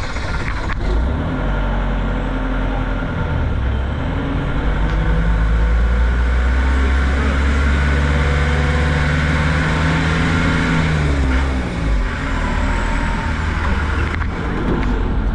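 Tour vehicle's engine running as it drives on. Its pitch climbs over several seconds in the middle, then drops back about eleven seconds in.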